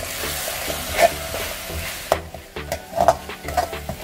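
A spatula stirs and scrapes a thick tomato-onion masala, with freshly added chilli and turmeric powder, around a hammered metal kadai over a sizzle of hot oil. The sizzle fades about two seconds in, leaving a few sharp scrapes and knocks of the spatula against the pan.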